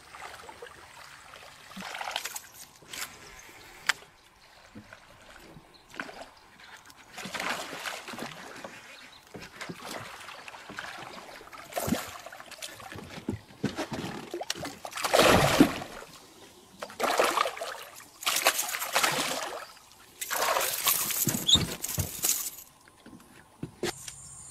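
A series of water splashes from giant snakehead (toman) hitting and thrashing at a lure on the surface, some seven separate splashes with the loudest about two-thirds through.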